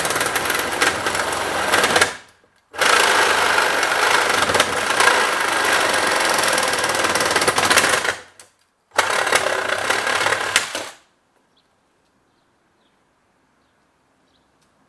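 Cordless Milwaukee reciprocating saw (Sawzall) cutting through the metal frame of a pickup's tow mirror. It runs in three stretches with two short pauses and stops about eleven seconds in, as the mirror comes free.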